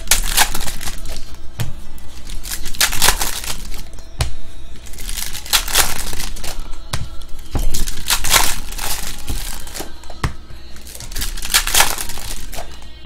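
Foil trading-card packs crinkling and tearing as they are opened by hand, with the cards clicking and rustling as they are pulled out and shuffled. Several loud crinkling spells come a few seconds apart.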